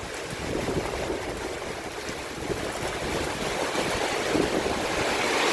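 Gusty wind and rain from a hurricane's outer band: a steady rushing noise that grows louder toward the end, with wind rumbling on the microphone.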